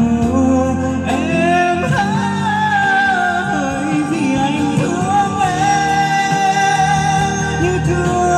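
Man singing a Vietnamese ballad into a microphone over instrumental backing, holding long notes with a slight vibrato.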